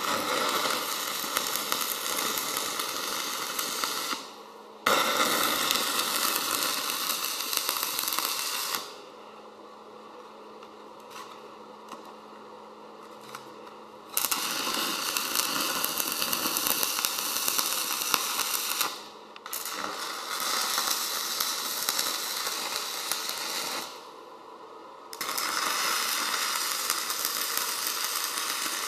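Electric arc welding on thick mild-steel plate: a loud, steady crackle and sizzle of the arc. It comes in five runs of about four to five seconds each, with short pauses between them as the arc is broken and struck again.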